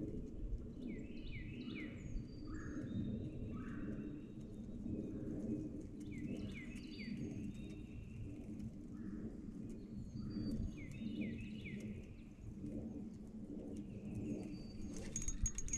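A songbird singing the same short phrase over and over, about every five seconds: a quick run of falling whistled notes followed by a couple of lower ones, over a steady low rumble. Near the end a thin, high, steady whine with a hiss sets in.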